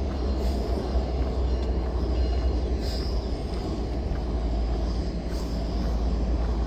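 Train rolling slowly on an active railroad bridge: a steady low rumble with no break.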